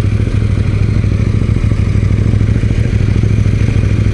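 KTM 790 Duke's parallel-twin engine idling with a steady low rumble, the bike stopped at a light.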